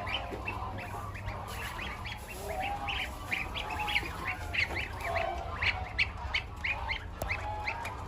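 A brood of newly hatched goslings peeping continuously: a dense run of short high peeps, several a second, with a few lower, longer calls among them, over a steady low hum.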